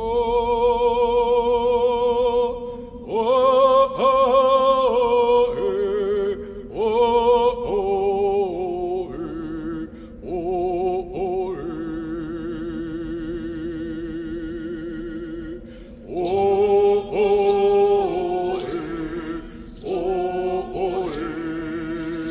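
Background music: a solo voice singing long, wavering held notes in phrases with short breaks, over a steady low note.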